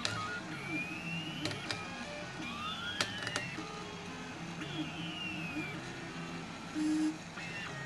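3D printer extruder stepper motor making weird calliope noises: pitched tones that slide up and down, overlapping with steadier low hums from the motors and a few sharp clicks, with a short louder buzz near the end. The cause is the controller treating the extruder positions as relative mode, so the extruder is driven with wrong moves.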